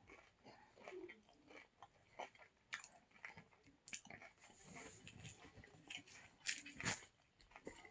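Quiet close-miked chewing of taco, with irregular soft crunches and wet mouth clicks.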